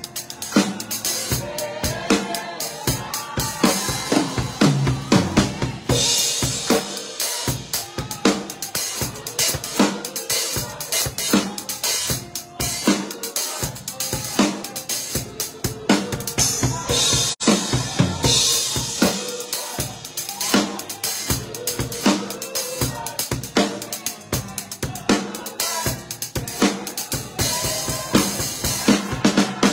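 Drum kit played with sticks: a busy groove of snare, bass drum and rim strokes, with cymbal crashes about six seconds in, around sixteen seconds, and near the end.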